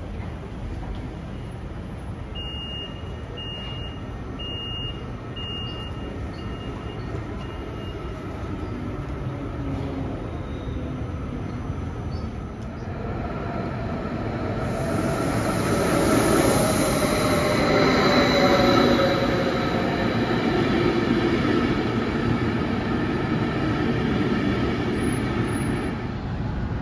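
Door-closing warning beeps on a double-deck S-Bahn train, about seven short high beeps roughly one a second. From about halfway in, a double-deck electric train pulls into the underground station: a rising rumble with wheel squeal and an electric whine that falls in pitch as it brakes, echoing off the platform hall.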